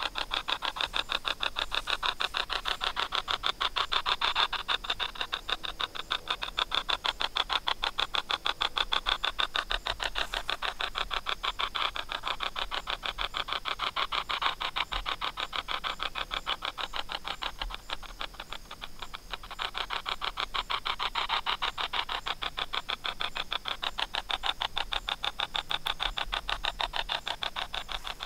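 Spirit box app sweeping through a phone's speaker: a fast, even stream of choppy clicking static, swelling louder and easing off every few seconds.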